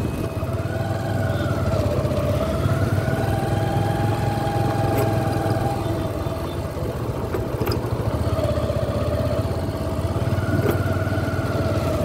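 Motorcycle engine running steadily at low speed while the bike is ridden, heard from the rider's seat, with a continuous low drone.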